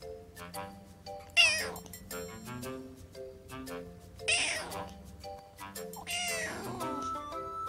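Kitten meowing three times, high-pitched calls that fall in pitch, the first the loudest and the last the longest, over light background music.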